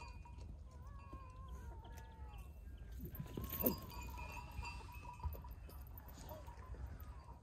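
Flock of sheep bleating faintly in the distance, with the thin ringing of animal bells. A short, louder noise stands out about three and a half seconds in.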